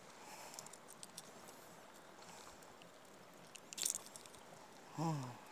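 Faint handling sounds of a small fish being unhooked from a minnow lure: soft rustles and small clicks of the treble hooks and fish, with a brief sharper crackle a little before four seconds in. A short low voiced grunt, falling in pitch, comes near the end.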